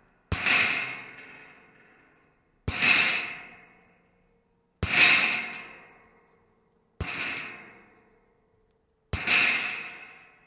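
Scrap metal rattling in five separate bursts about two seconds apart, each starting sharply and dying away over a second or so.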